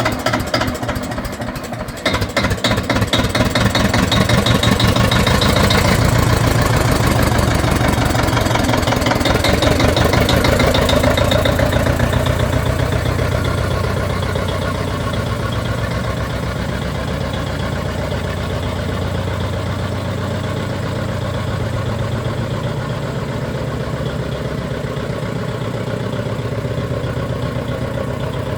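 Steyr 180 tractor's diesel engine running with a hard diesel knock. It is louder and busier through roughly the first dozen seconds, then settles to a steadier, quieter idle.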